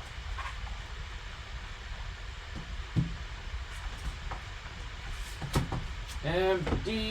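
Card packaging being handled and opened, with a few light clicks or knocks, the sharpest about 3 and 5.6 seconds in, over a steady low hum.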